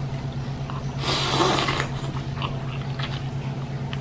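A person slurping noodles in broth: one hissing slurp about a second in, followed by a few soft chewing and mouth clicks, over a steady low hum.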